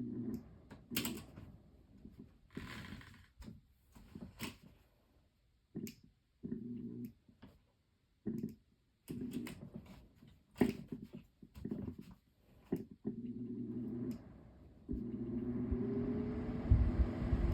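20-inch Aerospeed box fan's rotary speed switch clicked over and over, the motor humming in short bursts each time the low setting makes contact. This is the faulty low speed that only catches when the switch is turned rapidly. Near the end the hum holds steady for a couple of seconds.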